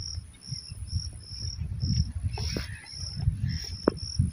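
Crickets chirping in an even pulse, about two short high chirps a second, over a steady high insect whine, with a loud, uneven low rumble on the microphone.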